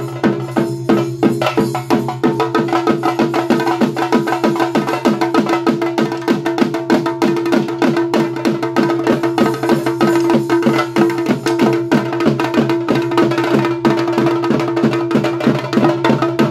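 Traditional drumming for a Tulu bhoota kola (spirit-worship ritual): fast, even drum strokes, about four to five a second, over a steady held tone.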